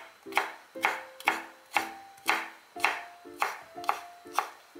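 Chef's knife chopping sweet potato pieces finely on a wooden cutting board: sharp, even strokes about two a second.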